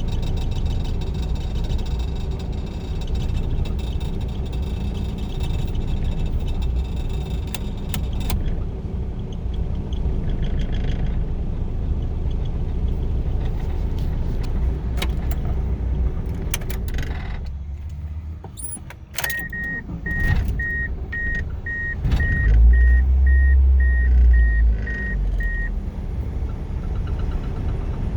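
Chrysler 420A 2.0-litre four-cylinder engine running with a rough idle and hesitation. About 17 seconds in, its sound falls away almost to nothing. A car's warning chime then beeps repeatedly for several seconds, and the engine comes back up loudly before settling to idle again.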